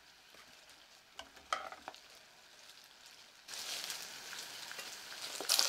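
Chicken skin deep-frying in oil in a small pot, a steady sizzling hiss. It comes in suddenly about three and a half seconds in, after a near-quiet start with a few light clicks, and grows louder near the end.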